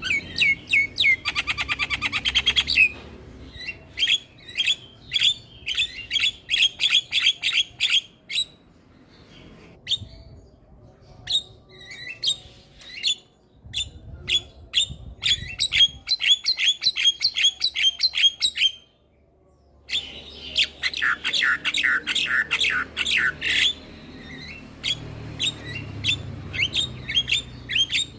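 Javan myna (jalak kebo) singing: fast strings of sharp chirps and squawks, several a second. A dense rattling run comes near the start and another about two-thirds of the way through, after a brief pause.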